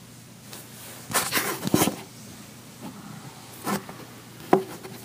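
A sleeping person snoring: one loud, rattling snore lasting under a second about a second in, followed by two short, quieter snuffles near the end.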